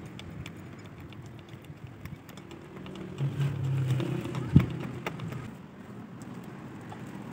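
Light metallic clicks and clinks of hand tools and steel tractor axle parts being handled, with one sharp knock about four and a half seconds in. A low engine-like drone rises in the background for a couple of seconds around the middle.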